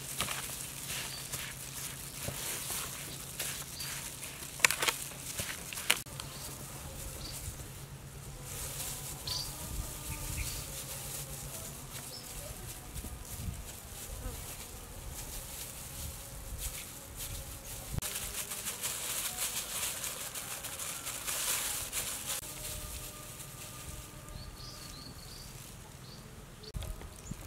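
Insects buzzing, with a steady low buzz for the first few seconds, over soft squishing of gloved hands kneading mashed potato and shredded chicken in a plastic bowl. Two sharp clicks come about four and a half and six seconds in.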